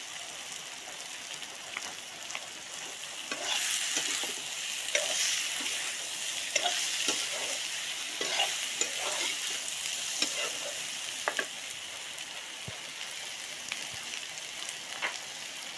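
Meat and potato curry sizzling in a kadai while a metal spatula stirs it, scraping and clicking against the pan. The stirring is busiest from about three and a half seconds in until about eleven seconds, then settles back to a steady sizzle.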